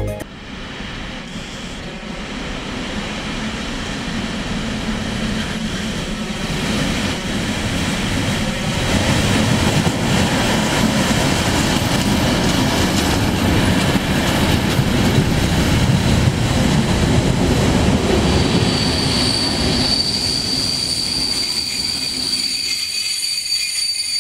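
Czech class 749 diesel locomotive drawing a passenger train into a station. Its engine and running gear rumble louder as it comes close and passes. From about two-thirds of the way in, the brakes squeal with a high, steady tone as the coaches roll by and the train slows.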